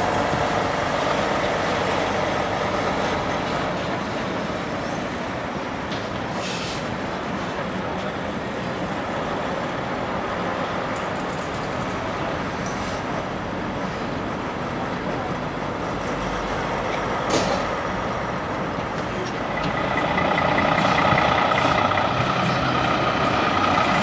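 Diesel engine of a 2022 Peterbilt 389 semi tractor running as it pulls a trailer at low speed, growing louder near the end as the truck comes closer. A brief sharp noise is heard about 17 seconds in.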